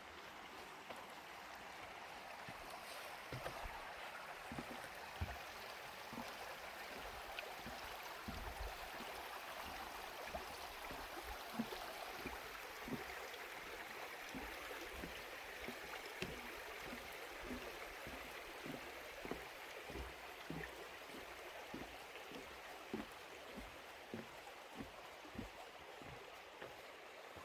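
Flowing water, a steady rushing hiss, with many short low thumps scattered through it.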